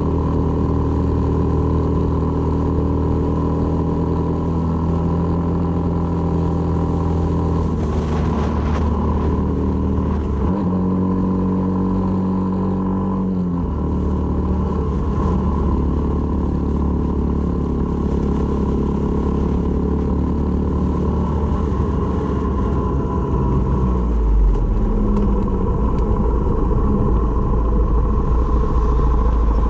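Honda MSX125's single-cylinder four-stroke engine running steadily under way, its pitch changing a few times as the throttle or gear changes, notably around ten to fourteen seconds in and again near the end.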